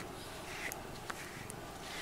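A grooming brush stroking through a cat's fur: soft, evenly repeated swishes about once every 0.7 seconds, with a few faint ticks in between.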